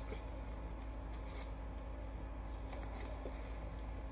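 Faint rustling and light scrapes of cardboard packaging being handled and pulled apart by hand, over a steady low hum.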